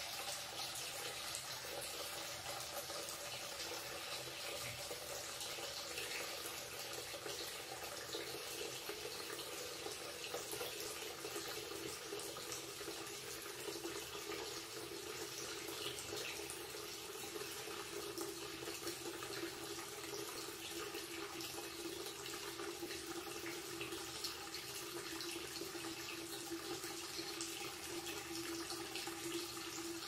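Water running steadily from a wall-mounted tap into a ceramic wash basin, splashing into the shallow pool over the drain, with a faint tone that slowly falls in pitch.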